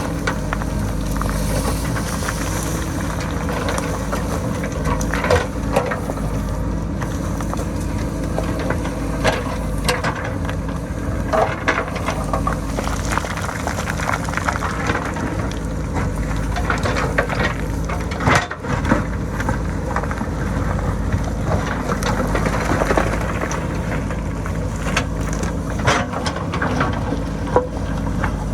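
JCB backhoe loader's diesel engine running steadily under load, with scattered knocks and clatter of rocks and stones as the bucket cuts into the rocky hillside.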